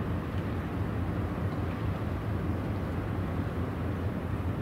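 Steady low rumble of a car ferry's diesel engines running under way.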